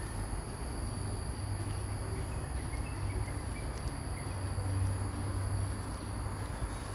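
Steady high-pitched drone of insects, two thin unbroken tones, over a low, even rumble of road traffic.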